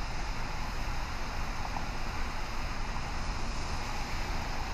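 Steady hiss of rain with wind noise on the microphone.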